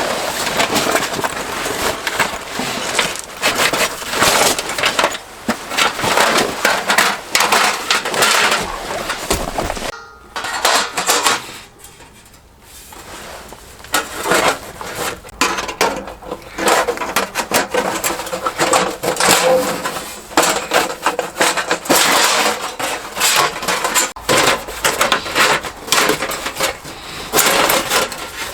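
Close handling noise: a dense run of rapid clattering, cracking and rustling, easing off briefly about ten seconds in and then picking up again.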